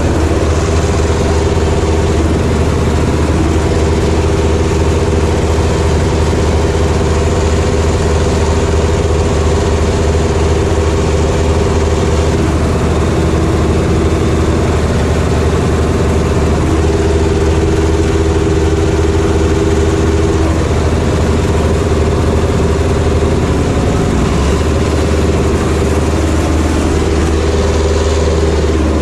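Ursus C-330's two-cylinder diesel engine running steadily under load while pulling a potato digger, heard from the driver's seat. A second tractor's diesel works close behind, and the engine note shifts slightly about 24 seconds in.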